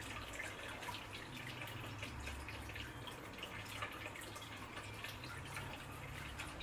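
Water trickling and dripping: many small, quick drips and splashes over a low steady hum.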